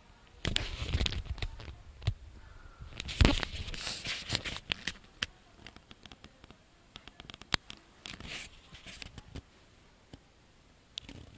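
Two cats tussling: rustling, scratching bursts with sharp clicks and a thump about three seconds in, then scattered light ticks and scrapes.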